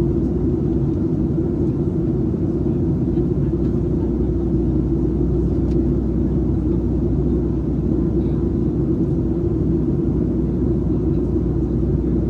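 Steady in-cabin noise of a Boeing 737-700 in flight on approach: a low, even rumble of its CFM56-7B turbofan engines and the airflow over the fuselage.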